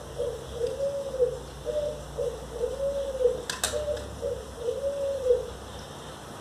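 A dove cooing in a repeating phrase: a long arched coo about every two seconds, with shorter coos between. One sharp click comes a little past halfway.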